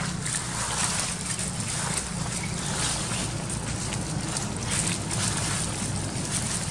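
Steady wind-like rumble and hiss on the microphone, with scattered rustles and crackles of dry leaf litter as macaques walk over it.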